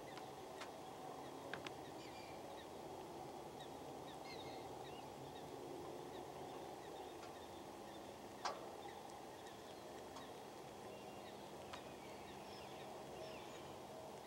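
Faint outdoor ambience: a steady low hiss, with scattered faint short calls from distant animals and a few sharp clicks, the loudest a little past halfway.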